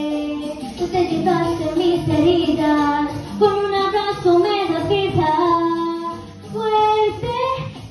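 A girl singing solo into a handheld microphone, holding long, wavering notes, with a short break about six seconds in.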